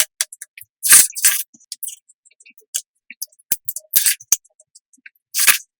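Close-miked eating sounds: several bursts of crunchy, wet chewing of a watermelon, roast duck and tomato rice bowl, about a second apart at first and then a few seconds apart, with small mouth and utensil clicks in between.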